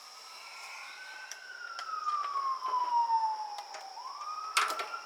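A siren wailing: one slow glide down in pitch over about three seconds, then rising back up about four seconds in. A few sharp knocks sound near the end.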